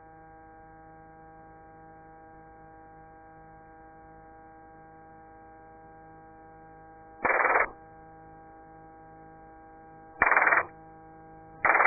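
Helicopter headset intercom with a steady faint hum and several held tones, broken by three short, loud bursts of radio static: one after about seven seconds, then two close together near the end.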